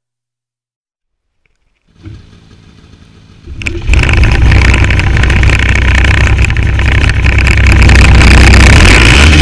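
Silence, then a faint sound about two seconds in, and from about three and a half seconds in a snowmobile engine running loud and steady.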